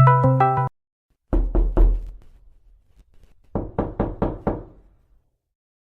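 Knocking sound effect: a few heavy, thudding knocks, then after a pause a quicker run of about five knocks. Just before, the last notes of a short electronic jingle cut off.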